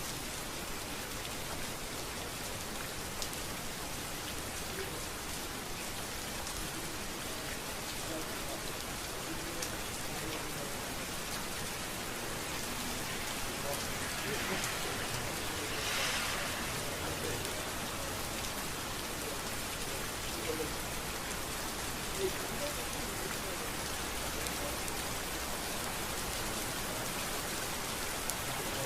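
Steady rain falling on a street, with scattered sharp drop ticks and a brief swell of hiss about halfway through.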